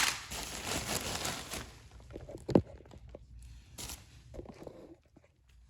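Handling noise from unpacking plastic toys: rustling of packaging for about a second and a half, then a single sharp knock of hard plastic and a few lighter clicks.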